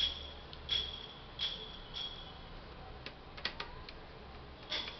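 Light clicks repeating about every 0.7 seconds, each with a short high ring, broken about three seconds in by a quick cluster of sharper clicks.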